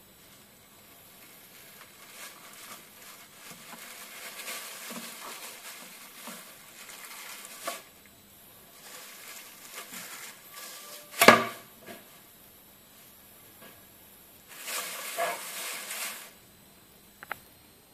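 Plastic wrap rustling and crinkling under a slab of cut nougat as it is handled, in two spells, with faint clicks and one sharp knock about eleven seconds in, the loudest sound.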